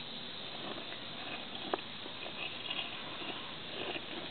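Faint rustling and a few soft clicks as eastern box turtles scrabble and shift on dry soil and leaf litter, over a steady background hiss; the sharpest click comes just under two seconds in, with a few more rustles later.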